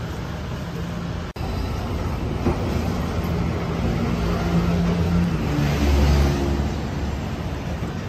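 Road traffic: a steady rumble of passing vehicles that swells about five to six seconds in, as one with a low engine hum goes by close. The sound cuts out for an instant just over a second in.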